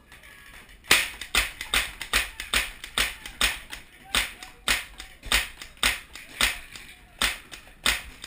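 Paintball marker shots in a steady string of sharp pops, about two a second, starting about a second in, each with a short ring from the metal van around the shooter.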